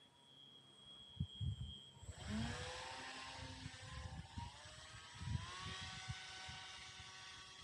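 RC paramotor's motor and propeller whining, coming in about two seconds in and rising in pitch twice, with irregular low thumps underneath.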